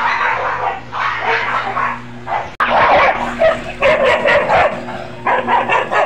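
Askal street dogs fighting: a rapid, continuous run of harsh barking, growling and yelping bursts, broken briefly about two and a half seconds in.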